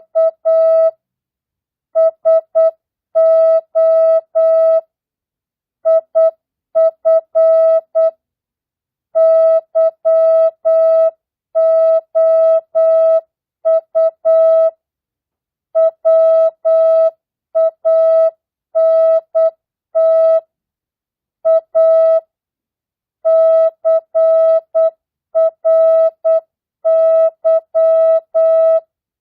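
Morse code (CW) practice tone: a single steady pitched beep keyed on and off in short dots and longer dashes at 8 words per minute. Characters and words are spaced at the same speed (non-Farnsworth).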